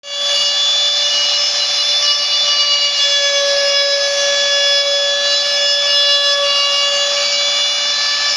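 CNC machine running, its spindle giving a steady high-pitched whine over a constant hiss.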